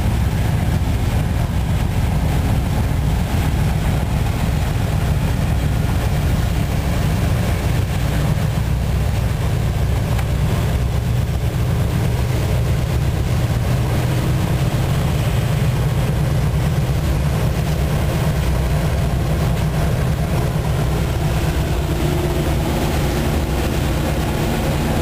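DXC diesel-electric locomotive running steadily while hauling a loaded coal train, heard from inside the cab as a constant deep engine drone.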